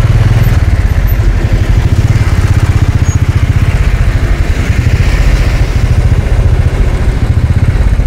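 Motorcycle engine idling steadily: a loud low rumble with a quick, even pulse.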